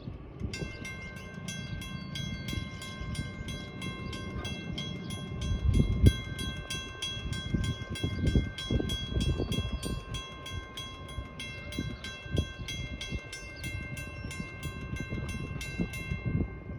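WCH mechanical crossing bell ringing with rapid, evenly spaced strokes, then stopping abruptly near the end as the crossing gates finish lowering. Low rumbling gusts run underneath.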